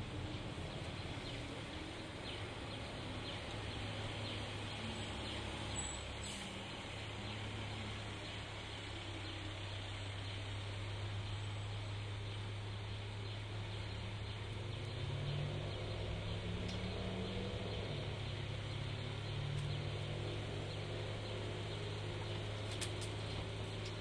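Street noise with a vehicle engine idling: a steady low hum that comes in about a quarter of the way through, its pitch rising and falling a few times past the middle.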